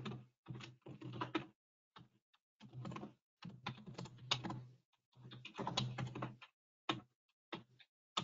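Typing on a computer keyboard: runs of quick keystrokes with brief pauses between them.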